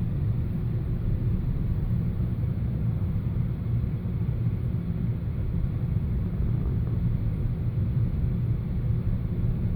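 Steady low rumble of a moving passenger train, heard from inside the car.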